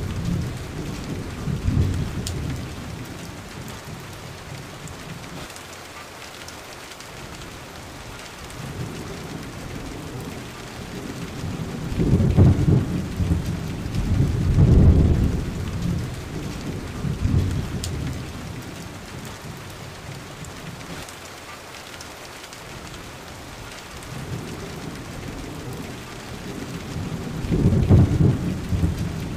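Thunderstorm: steady rain falling, with rolling thunder that rumbles low and swells about twelve seconds in, twice more over the next few seconds, and again near the end.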